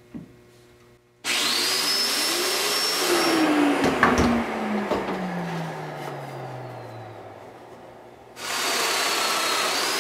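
Festool Domino joiner and its dust extractor switching on abruptly about a second in for a mortise plunge cut, then winding down with a long falling whine. They start up again near the end for the next cut.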